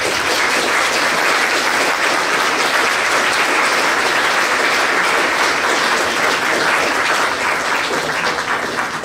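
Audience of a dinner hall applauding: a dense, steady spread of clapping from many hands that begins to die down near the end.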